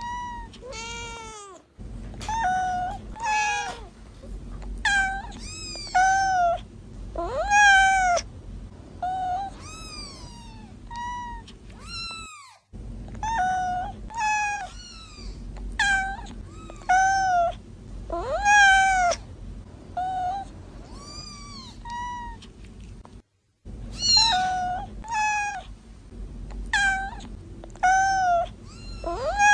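Young kittens meowing over and over, high-pitched calls about once a second, many rising and then falling in pitch. The sound cuts out to silence briefly three times, about eleven seconds apart.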